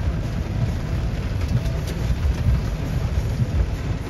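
Heavy rain in a thunderstorm, a steady hiss with an uneven low rumble underneath.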